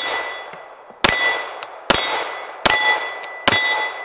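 Springfield Armory XDM 5.25 pistol firing five shots at an even pace, about one every 0.8 s. Each hit leaves a steel plate target ringing with a clear tone that fades before the next shot.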